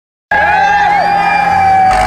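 A crowd shouting and cheering over a diesel tractor engine running hard, with a long held high note and shorter gliding calls on top. It all starts abruptly just after the beginning.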